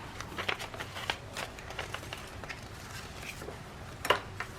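Paper and card rustling and light taps as postcards and journal pieces are handled, with a sharper tap about four seconds in.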